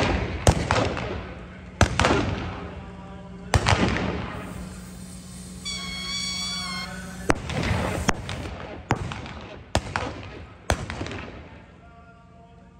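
Single-action revolvers firing black-powder blanks at balloons during a cowboy mounted shooting run: about eight sharp shots, unevenly spaced, each ringing off the arena. A brief held high tone sounds about six seconds in, and the shots stop near the end.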